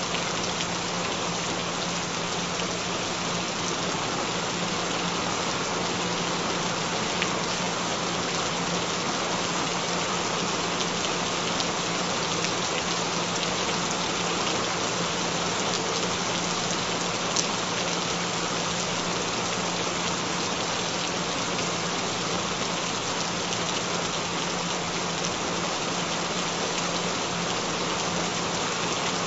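Steady rain falling, an even hiss with a few louder single drops, over a steady low tone.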